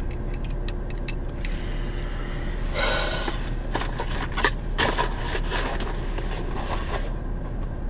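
Handling noise from a camera and its suction-cup mount being adjusted: scattered plastic clicks and knocks, with a short scrape about three seconds in.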